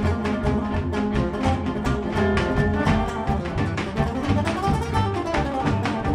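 Live string band playing a fast instrumental, with an acoustic guitar taking a solo in quick picked runs over bass and the rest of the band.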